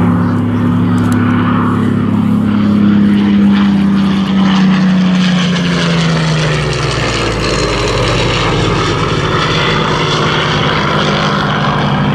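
Supermarine Spitfire's V12 piston engine running loud and steady as the fighter flies past overhead; its note drops in pitch about six seconds in as it passes and banks away.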